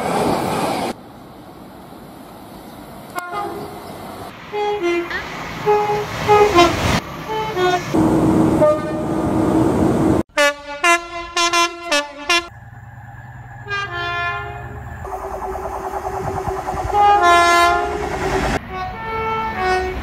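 A string of different train horns, one clip after another: short two-note toots, then a quick run of loud sharp blasts just past the middle, then longer held horn notes, over the noise of trains running past.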